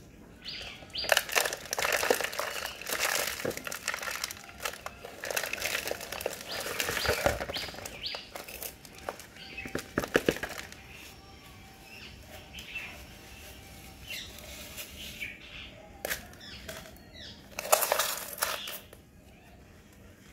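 Rustling, scraping and clicking from handling potted Aglaonema plants: plastic plant pots knocked and shifted, leaves brushed and potting soil worked by hand. The noises come in uneven bursts, busiest in the first few seconds and again near the end.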